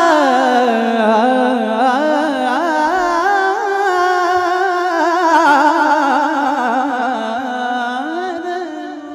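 A man singing a long, high, wordless ornamented phrase in Indian devotional style, the pitch wavering and gliding up and down in continuous melismatic runs without a break.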